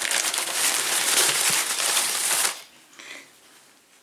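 Packing material rustling and crinkling as it is pulled about by hand. The sound is dense and continuous, stops abruptly about two and a half seconds in, and a brief faint rustle follows.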